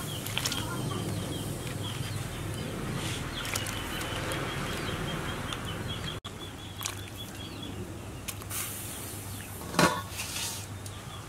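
Water boiling in a metal pot as pieces of fish bone are dropped in, over a steady row of high repeated chirps; near the end a chicken gives one loud cluck.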